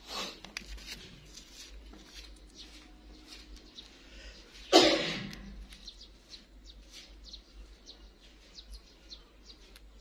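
Plum-headed parakeet nibbling food held in its foot: many faint, short clicks of beak on food. A short, loud, harsh sound comes about five seconds in and fades within half a second, with a smaller one at the very start.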